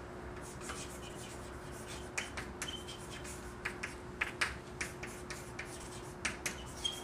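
Chalk writing on a blackboard: a quick, irregular run of short taps and scratches as the letters are written, starting about half a second in.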